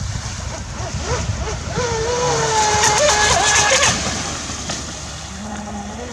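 Pro Boat Voracity RC speedboat's brushless electric motor whining as it runs across the water, the pitch gliding up and down with throttle and passes. A spell of hissing spray comes in the middle, over a low rumble of wind on the microphone.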